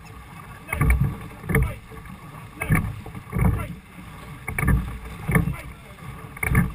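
A six-oar Cornish pilot gig being rowed hard through choppy water. Each oar stroke makes a pair of loud beats, and the pairs repeat about every two seconds in a steady rowing rhythm over the rush of water and wind.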